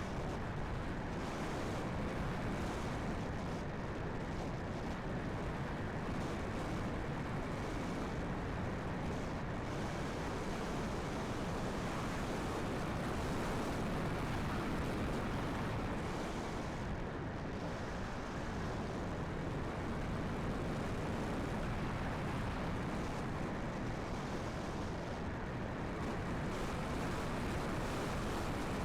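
Strong gusty wind buffeting the microphone: a steady rumbling rush that swells and eases slowly, with no engine or motor tone standing out.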